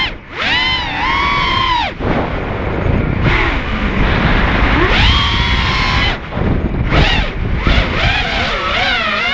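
Racing FPV mini quad's brushless motors and propellers whining, the pitch swooping up and down again and again as the throttle is punched and cut through flips and dives, over a rushing wind noise on the onboard microphone. The whine drops out briefly twice, about two seconds in and about six seconds in.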